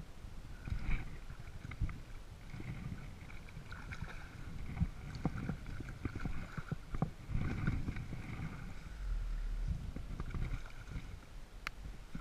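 Water lapping and sloshing against a plastic kayak hull, with wind rumbling on the microphone. A spinning reel whirs on and off as it is cranked, with a few light knocks of handling.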